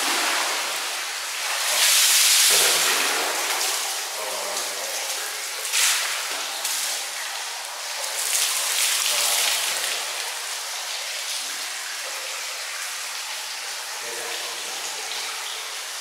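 Bowlfuls of water poured over a person's head to rinse off soap lather, splashing down onto the marble, loudest about two seconds in and again near six seconds and around eight to nine seconds, with water hissing steadily between pours.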